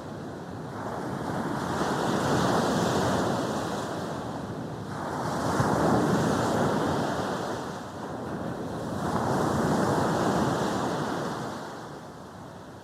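Sea waves breaking and washing up a beach, rising and falling three times about four seconds apart.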